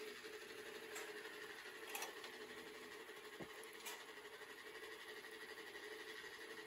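Quiet workbench room tone with a steady faint hum, and a few light clicks as small metal parts are handled with pliers.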